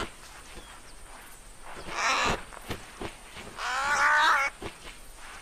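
An animal-like vocal cry from an animated short: a short rough burst about two seconds in, then near the end a wavering, bleat-like pitched call lasting under a second, with a few small knocks between.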